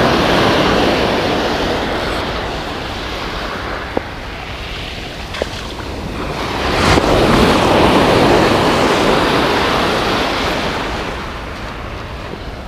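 Shore surf breaking and washing up a sandy beach, swelling twice as waves come in, with wind buffeting the microphone. Two small clicks sound midway.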